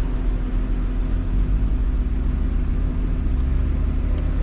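Porsche Cayenne engine idling steadily, a low even hum.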